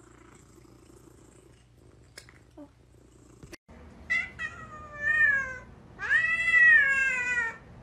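A cat meowing three times, each cry louder and longer than the one before; the last is a long, drawn-out meow.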